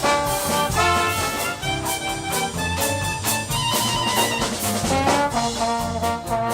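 Swing-style jazz music with brass horns playing a melody, and a steady beat that comes through more strongly near the end.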